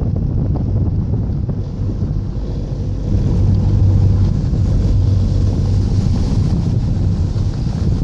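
Wind buffeting the phone's microphone over the low rumble of a moving car, with a rushing hiss that grows louder about three seconds in.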